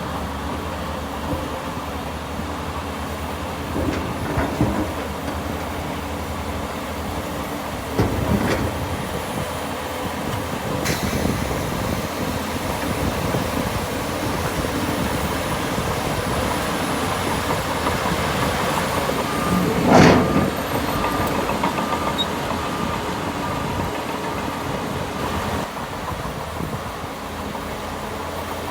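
Heavy diesel earthmoving machinery running steadily, with occasional metallic clanks and knocks, the loudest about two-thirds of the way through.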